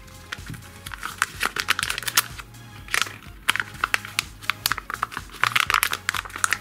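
Crinkling and crackling of a Kinder Joy egg's plastic packaging and sealing film as it is peeled open by hand, in many short rustles, over quiet background music with a steady low beat.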